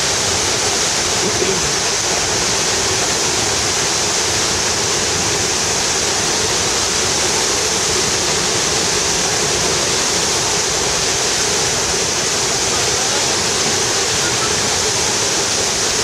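Steady, mighty rush of La Fortuna Waterfall, a tall single plunge of water crashing into its pool, an even unbroken noise.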